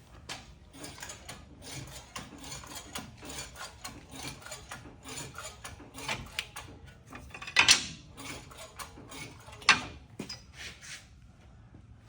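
Hand ratchet wrench clicking in quick, uneven strokes as bolts are run in, with two louder metal clanks a few seconds apart late on.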